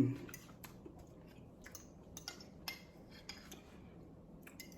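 Cutlery lightly clinking and tapping against a dish: a scattered series of small clicks, a few with a brief high ring.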